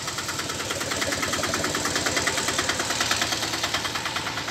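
A motor vehicle's engine running close by with a rapid, even pulse. It grows louder from about a second in and eases off near the end, as if passing.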